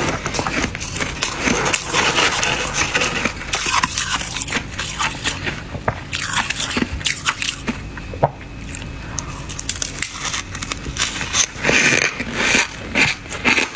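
Thick freezer frost being scraped off in crunchy chunks: a continuous run of crackling, crunching scrapes, denser near the start and again near the end.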